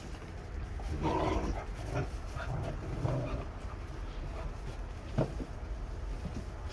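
Bernese mountain dog puppies panting while they rustle and dig about in hay, with one sharp tap a little after five seconds in.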